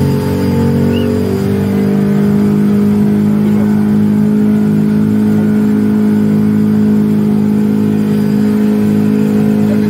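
Speedboat engine running under way, its note changing about a second in and then holding steady.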